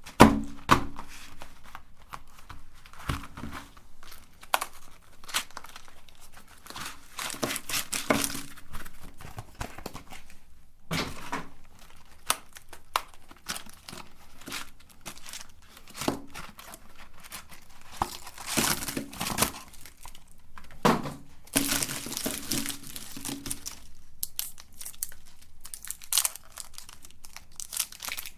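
Plastic wrappers of chocolate sticks crinkling and tearing as they are handled and opened, in irregular bursts with occasional thunks.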